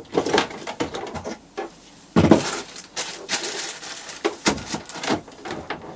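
Hard plastic knocks and clatter as a power-tool charger is set into a moulded plastic tool case. The loudest clunk comes about two seconds in, with several lighter knocks after it.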